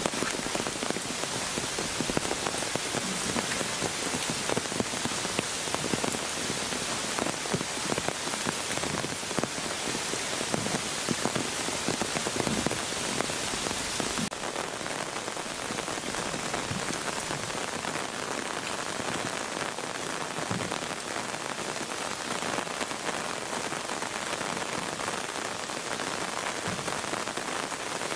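Steady rain falling: a continuous hiss with many small drop impacts, slightly duller in its high end from about halfway through.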